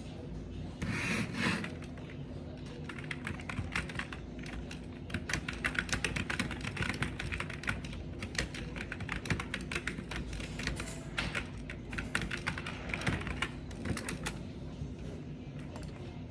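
Typing on a computer keyboard: quick runs of key clicks, pausing now and then, over a steady low hum. A brief louder noise comes about a second in, before the typing starts.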